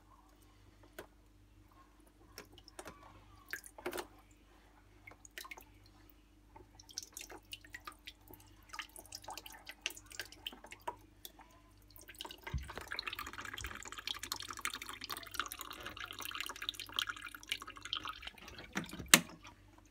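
Water draining out of a gas combi boiler, dripping and trickling: scattered drips at first, then a denser steady trickle from a little past halfway. A single sharp knock near the end is the loudest sound.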